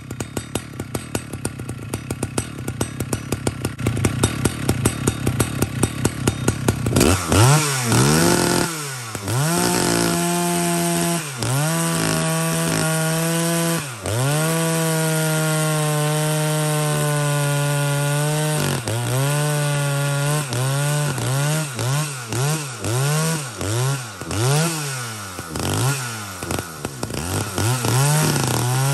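Husqvarna 2101 two-stroke chainsaw idling with a steady pulsing beat, then revved up about seven seconds in and cutting through a log at full throttle. Its pitch sags as the chain bites into the wood and rises again as it frees. Near the end it is revved and eased off about once a second, with the carburettor set rich.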